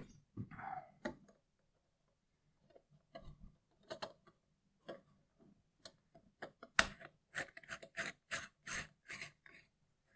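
Hands working the rear fittings of a Celestron EdgeHD telescope tube: scattered light clicks and taps, a sharper click about seven seconds in, then a quick run of clicks.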